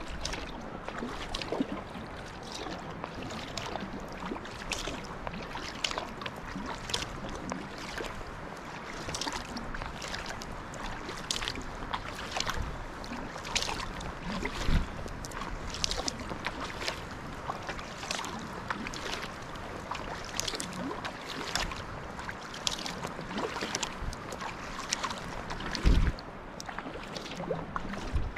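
Kayak paddle strokes in calm lake water: the blades dip and pull with short regular splashes and drips, over a steady wash of water along the sea kayak's hull. A few low thumps come through, the loudest near the end.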